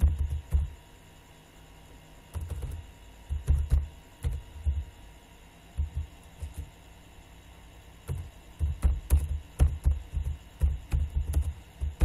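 Typing on a computer keyboard: keystrokes heard as dull thumps with light clicks. They come in a few scattered short runs at first, then as a quicker, steady run of presses in the last few seconds.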